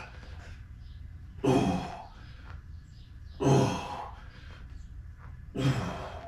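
A man's forceful, grunting exhales with each rep of bodyweight dips: three loud breaths about two seconds apart, each fading quickly.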